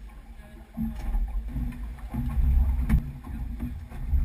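Low rumbling noise aboard a small aluminum fishing boat, swelling about a second in, with a sharp knock just before three seconds in as gear is handled on deck.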